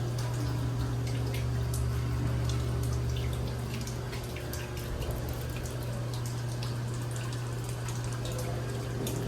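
A steady low machine hum, with many small, irregular ticks and drips over it.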